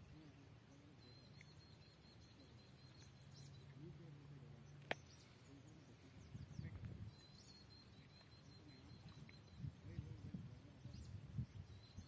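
Near silence: faint outdoor ambience with two stretches of faint high-pitched trilling chirps and a single sharp click about five seconds in.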